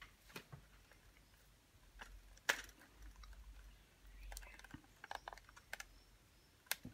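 Faint, scattered clicks and taps of hard plastic as an Apple Newton MessagePad 100's case is squeezed in the hands and a power plug is pushed into its side jack, the sharpest click about two and a half seconds in.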